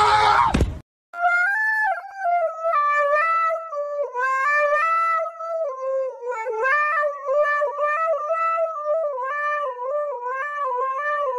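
A husky howling into a toy karaoke microphone: one long, high, wavering howl with short dips in pitch, starting about a second in. It follows a brief burst of other sound that cuts off just before it.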